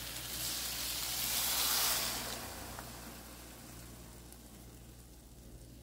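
Vegetable broth poured into a hot frying pan of toasted rice, sizzling. The sizzle swells to its loudest about two seconds in, then steadily dies away as the liquid covers the pan and cools it.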